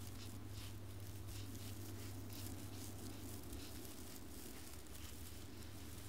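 Faint outdoor field ambience: a steady low hum with soft, irregular rustling.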